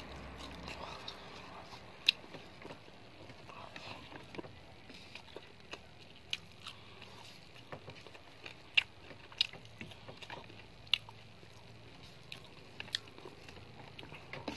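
Eating by hand from a plate of rice and fried chicken: chewing, with scattered sharp clicks, the loudest about two seconds in and again around nine and eleven seconds.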